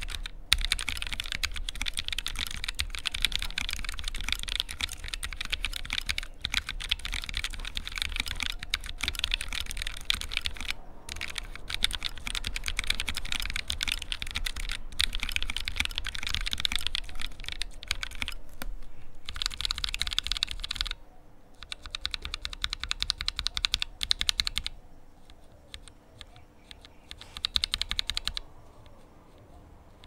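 Fast continuous typing on a Drevo Joyeuse low-profile mechanical keyboard with Kailh Choc Red linear switches, a rapid run of keystroke clicks. About twenty seconds in it breaks into a few shorter bursts with pauses, and it falls quiet near the end.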